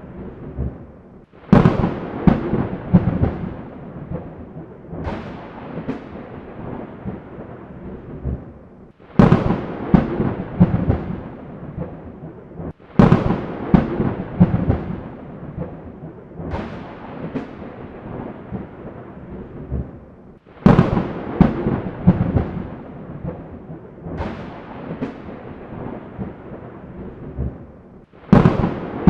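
Thunder in a storm: five sharp thunderclaps, each trailing off in a crackling rumble that fades over several seconds, with smaller cracks between them.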